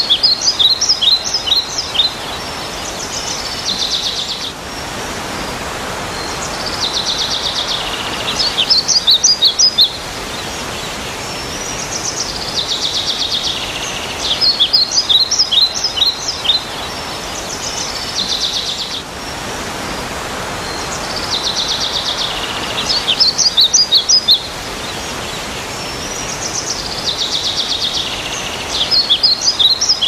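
Steady rain falling, with a songbird singing the same phrase about five times. Each phrase is a buzzy trill followed by a quick run of high down-slurred notes.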